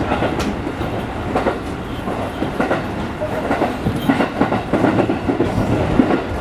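JR 207 series 900 electric commuter train running, heard from inside the cab: a steady rolling rumble with irregular clacks and knocks as the wheels cross rail joints and points.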